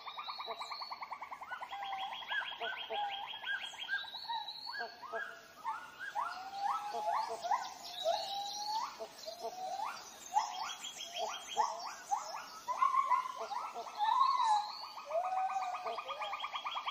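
Rainforest wildlife chorus: rapid pulsed trills that run for a second or two at a time, overlapping many short whistled calls that slide up and down in pitch, several a second.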